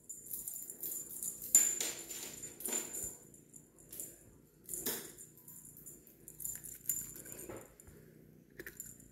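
A jingling cat wand toy rattling and ringing in irregular bursts as a kitten bats at it, with a few sharp knocks, the loudest about one and a half seconds in. It fades near the end.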